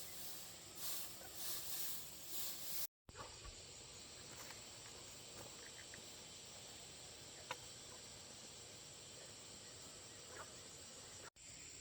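Steady high-pitched insect chorus over a background hiss, with a few faint clicks. The sound drops out completely for a moment twice, about three seconds in and near the end.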